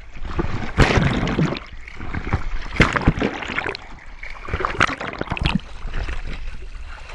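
Water splashing and sloshing around a camera held at the sea's surface, in irregular surges about once a second as the swimmer moves through the water.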